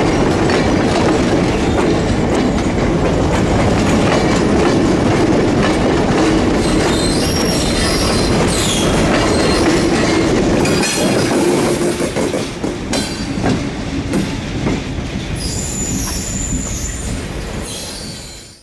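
Passenger train passing close by: a steady rumble and clatter of coach wheels over the rails, with high-pitched wheel squeals. The trailing diesel locomotive goes by about ten seconds in, after which the sound is quieter and uneven, with more squeals near the end.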